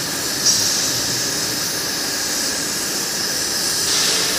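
Gas-cutting torches of a CNC profile cutting machine hissing steadily as they burn through steel plate, with a short sharper hiss about half a second in.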